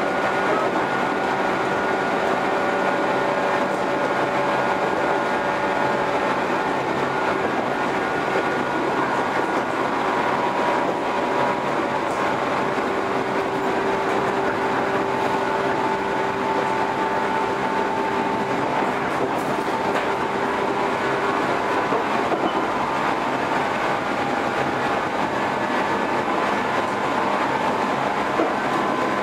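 JR 115 series electric train running at a steady speed: a steady whine from the traction motors and gears over continuous wheel-on-rail running noise.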